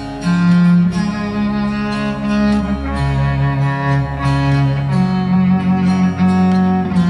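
Instrumental music: sustained bowed strings, with cello and violin, playing slow held notes.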